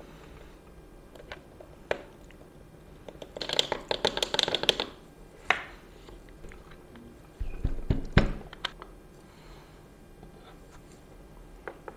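Coffee dosing funnel and ground adapter being handled: a burst of rapid tapping and rattling about three and a half seconds in, a sharp knock, then a few heavier knocks on the tabletop around eight seconds as the funnel comes off the adapter and is set down.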